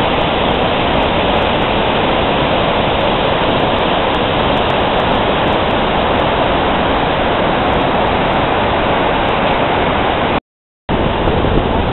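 Steady roar of falling water from the Iguazú Falls waterfalls close by. It cuts out abruptly for about half a second near the end, then comes back.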